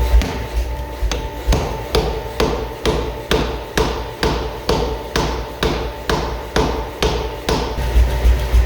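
Blacksmith's hammer striking a hot axe head on an anvil, about fifteen evenly paced ringing blows at a little over two a second, forge welding the axe. The blows begin about a second in and stop shortly before the end, over a low steady rumble.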